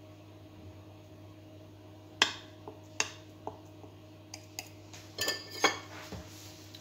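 Metal table knife clinking several times against a ceramic baking dish and a china plate. The clinks are sharp, and the last few, about five seconds in, ring as the knife is laid down on the plate.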